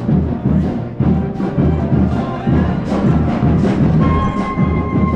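Marching band playing: the drumline keeps a steady beat of bass drum hits, about two a second, with cymbal splashes. About four seconds in, wind instruments come in holding notes.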